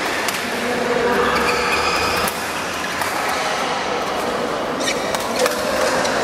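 Badminton rackets hitting a shuttlecock in a rally: several sharp hits, about one a second, over a steady din in a large hall.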